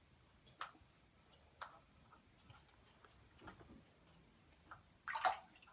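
A few faint clicks and light knocks from sink drain parts being handled, with one louder short clatter near the end.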